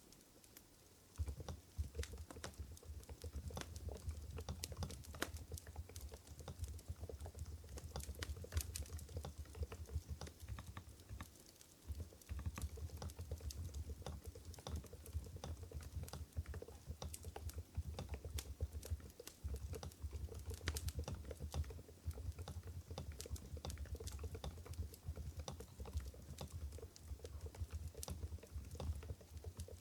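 Steady typing on an Mstone Groove GV10 keyboard with low-noise coral switches (45 g): a quick, irregular run of soft, deep keystrokes that starts about a second in, with short pauses twice.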